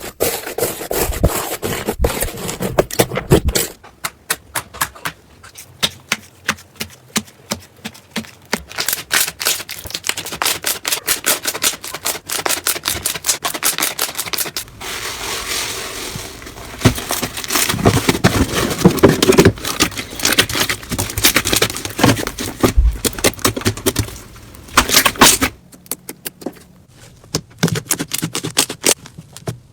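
Slime being squeezed and poked by hand, giving fast runs of sharp clicking pops and crackles. The texture changes abruptly a few times as one slime gives way to another.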